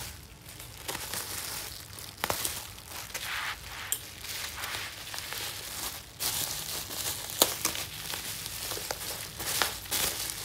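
Plastic bubble wrap crinkling and rustling as it is handled and pulled off a box, with a few sharp crackles.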